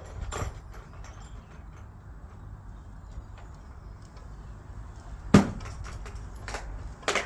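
Tenor bell being rung up from the down position on its rope: a low steady rumble broken by two short clanks, the louder about five seconds in and a second near the end.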